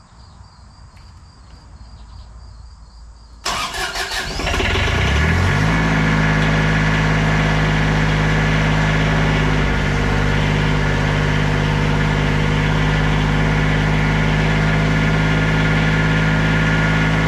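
Lincoln Ranger 300 DLX welder's engine cranked by its starter about three and a half seconds in, catching within a couple of seconds and settling into a steady run. It runs with its rebuilt original alternator newly refitted, in place of one whose shaft had play and was making noise.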